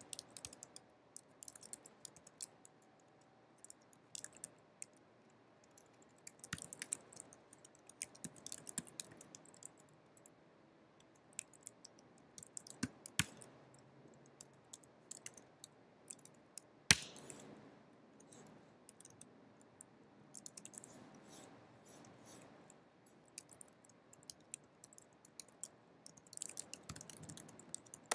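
Quiet computer-keyboard typing: runs of keystroke clicks broken by short pauses, with one sharper click about seventeen seconds in.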